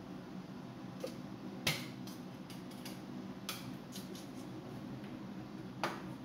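Short sharp clicks and knocks of a jar and its lid being handled, the loudest about a second and a half in and another near the end, over a steady low hum.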